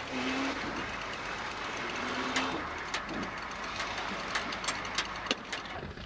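Off-road 4x4 engine running as the vehicle works through deep mud, its note held briefly twice, with scattered clicks and knocks.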